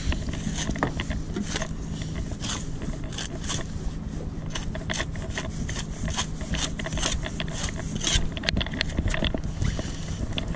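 Fillet knife slicing and scraping along a tautog (blackfish) as it is filleted on a plastic cleaning board: a string of short, scratchy strokes at an uneven pace, over a steady low rumble.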